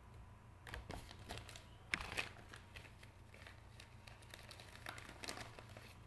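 Crinkly packaging rustling and crackling in the hands as it is handled and unwrapped. It is an irregular run of crackles starting about a second in, with the sharpest crackle near two seconds.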